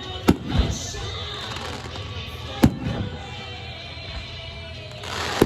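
Fireworks bursting overhead: a sharp bang right at the start with a second close behind, a single loud bang about two and a half seconds in, and another burst at the very end, with music playing steadily underneath.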